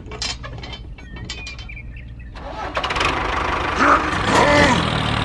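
A few light clicks as the cultivator is hitched on, then about two and a half seconds in the mini DIY tractor's motor starts up and runs steadily as the tractor pulls the cultivator through the sand.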